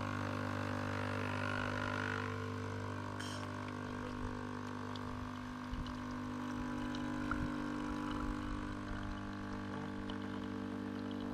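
Nescafé Dolce Gusto capsule coffee machine brewing, its pump giving a steady buzzing hum as coffee runs into the mug.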